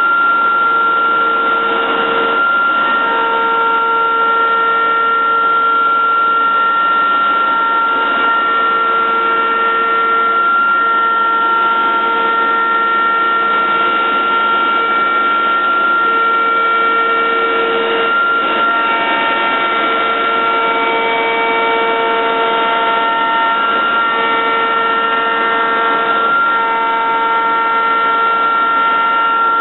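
Techno Isel CNC router routing MDF: a steady high spindle whine, with the drive motors' tones switching on and off and changing pitch every second or two as the gantry changes direction, over a steady rush of air.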